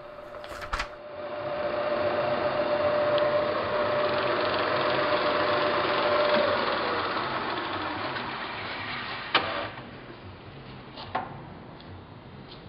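Clausing 20-inch floor drill press running: the motor and spindle come up to speed about a second in and run with a steady whine, then wind down from about seven seconds in. Sharp clicks come just before it starts and again twice near the end.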